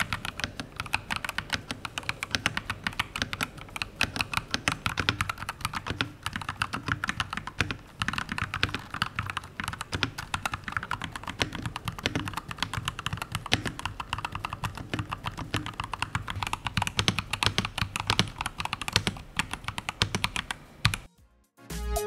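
Fast typing on a Fantech MAXFIT81 mechanical keyboard with PBT dual-shot keycaps: a dense run of keystroke clacks, first on Maxfit Milky Red switches and then, partway through, on Gateron G Pro 2.0 Yellow switches. The typing stops about a second before the end.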